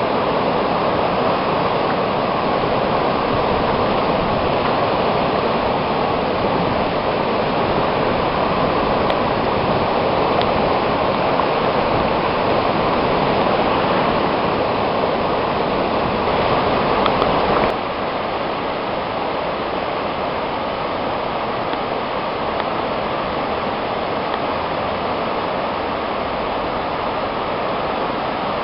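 Swollen river in full flood after torrential rain: fast brown floodwater rushing and churning over standing waves, a loud, steady rush of water. It turns a little quieter about two-thirds of the way through.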